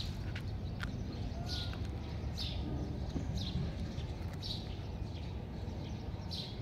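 Outdoor background noise with a steady low rumble and a short high-pitched chirp that repeats about once a second.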